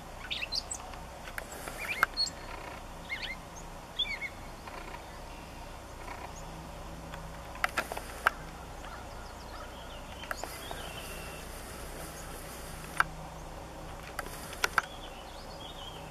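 Outdoor rural ambience with scattered short bird chirps over a faint steady low hum, and a few sharp clicks.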